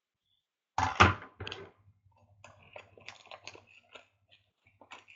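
Plastic and foil packaging of a trading-card box being handled and opened: a loud crackling rip about a second in, then a run of faint irregular crinkles and ticks.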